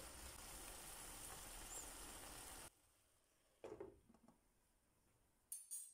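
Faint hiss of green beans simmering in a little water in a pan, which stops about two and a half seconds in. Then near silence with a couple of faint knocks.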